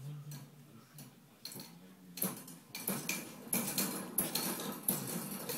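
Jolly Jumper baby bouncer rattling and clicking in quick, irregular bursts as a baby bounces hard in it, starting about two seconds in.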